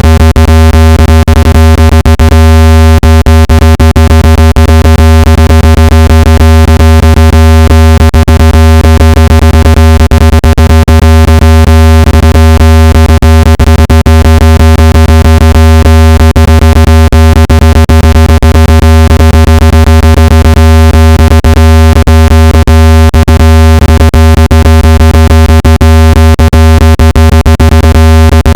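Loud, steady, low electronic test tone with many overtones, unchanging in pitch: a speaker-cleaning tone played to vibrate water and dust out of a phone speaker.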